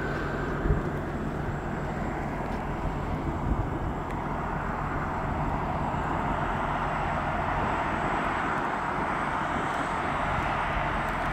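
Boeing 747-8F's four GE GEnx-2B turbofans running at taxi power: a steady jet rush and low rumble with a thin high whine over it. Two brief low thumps come about a second in and again a few seconds later.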